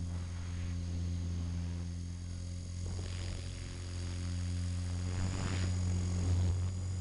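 450-size RC helicopter's motor and main rotor droning steadily, heard from the onboard camera, with a thin high whine above the hum. Rushing swells of air noise come in about three seconds and five and a half seconds in.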